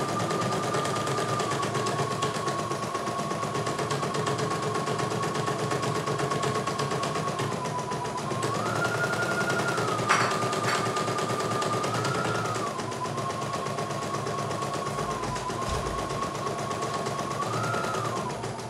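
CNY E900 computerised embroidery machine stitching a design: a rapid, even needle clatter over a motor whine that shifts up and back down in pitch a few times. There is one sharp click about ten seconds in.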